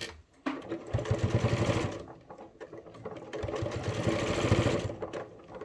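Electric sewing machine stitching close along the edge of a padded fabric coaster, in two spells of rapid, even needle strokes that ease off briefly in the middle and stop near the end.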